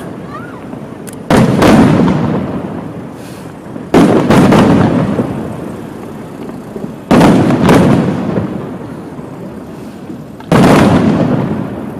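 Fireworks shells bursting overhead: four loud bangs about three seconds apart, the third followed closely by a second one, each dying away over a couple of seconds.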